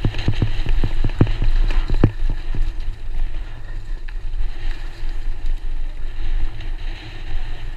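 Wind rushing over the microphone of a camera riding down a downhill mountain-bike trail, with the bike knocking and rattling over rough ground several times in the first two seconds, then a steady rush.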